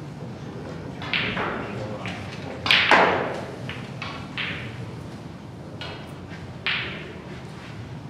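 A handful of sharp knocks echoing in a large hall, the loudest two close together about three seconds in.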